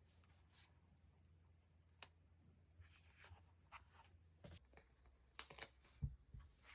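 Faint rustling and crinkling of paper and stickers being handled and peeled, with scattered small clicks and a soft knock about six seconds in.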